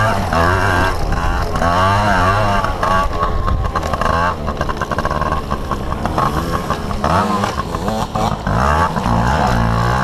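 Yamaha PW80's small two-stroke single-cylinder engine revving up and down under throttle while riding, close to the helmet camera. Through the middle the revs drop and the engine runs choppy and uneven, then it picks up with rising revs near the end.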